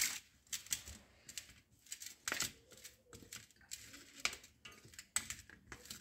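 A spatula mixing seasoned boiled sweet potato cubes on a stainless steel plate: irregular light taps and scrapes against the metal, about two a second.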